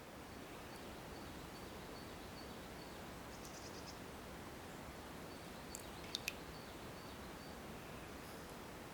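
Faint forest ambience: a steady soft hiss with a thin, high chirp repeating evenly, a short run of chirps about three and a half seconds in, and two sharp high bird-like calls about six seconds in.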